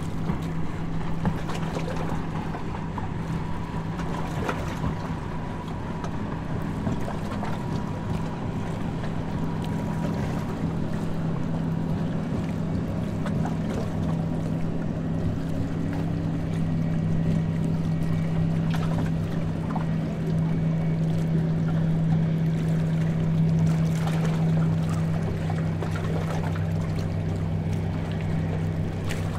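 Harbour tour boat under way: a steady low engine drone with a noisy wash over it, growing slightly louder toward the middle.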